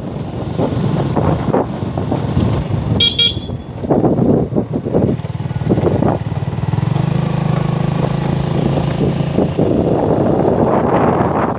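A moving road vehicle, its engine running under wind rushing over the microphone, with a short double horn toot about three seconds in. The engine's steady hum comes through more plainly for a few seconds in the second half.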